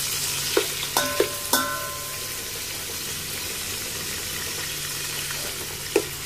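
Tomato wedges and ginger sizzling as they sauté in hot oil. A slotted metal turner knocks against the pot four times in quick succession about half a second to a second and a half in, and once more near the end.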